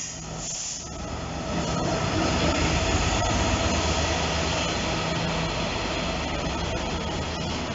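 Class 66 diesel freight locomotive passing with its two-stroke EMD engine running, followed by a string of open box wagons rolling by. The engine hum is steady, and the wheels click over the rail joints here and there.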